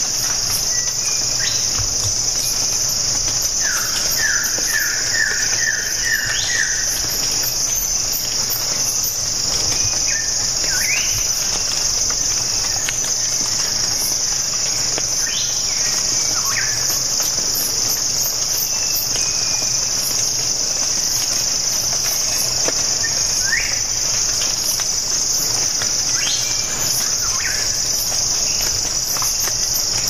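Steady high-pitched drone of insects, with scattered short bird calls over it, the clearest a quick run of about eight short rising notes about four seconds in.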